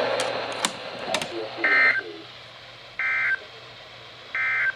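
Three short bursts of warbling digital data tones from a NOAA Weather Radio receiver, evenly spaced about 1.3 s apart: the Emergency Alert System (SAME) end-of-message code sent at the close of a severe thunderstorm watch broadcast. They follow about a second of crackling radio static.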